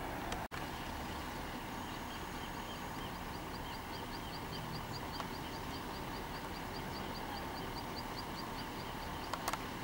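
Concrete mixer truck running steadily, with a row of quick high chirps, about three or four a second, from about two seconds in until near the end. The sound drops out for an instant half a second in.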